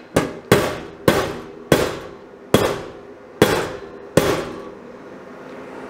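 Light hammer blows on a sheet-steel truck fender backed by a dolly: seven sharp, ringing taps, unevenly spaced, stopping a little past four seconds in. This is hammer-and-dolly work to knock down a high spot so the edges of a butt joint sit flush for tack welding.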